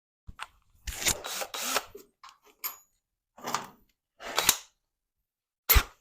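Tools and metal parts being handled in a workshop: a run of irregular rattles and knocks, ending in a sharp, loud clank.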